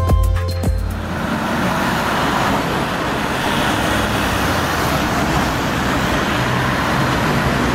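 Electronic music with a heavy bass beat stops about a second in, giving way to a steady, even wash of ambient noise.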